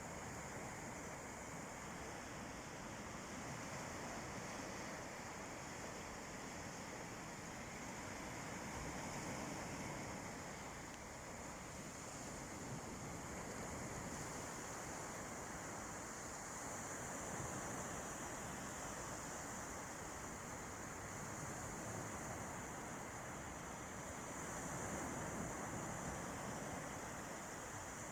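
Calm sea waves washing onto a beach: a steady wash that swells gently every several seconds.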